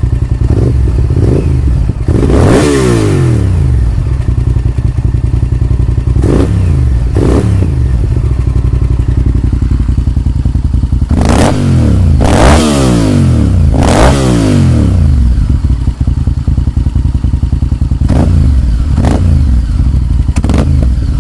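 Honda VTR1000F Super Hawk's 90-degree V-twin idling through Danmoto JISU slip-on mufflers, very loud and very deep. The throttle is blipped about eight times, and each time the revs climb quickly and fall back to idle.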